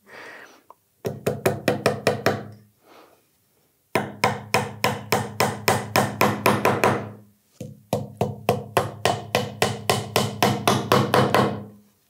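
Small hammer tapping upholstery nails through a stiff leather flap into a pine block, in three quick runs of light blows, about five or six a second.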